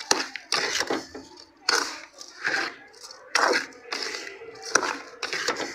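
A spoon scraping and stirring a moist semolina (rava) mixture in a pan as hot milk is worked in, in repeated short strokes a little over one a second.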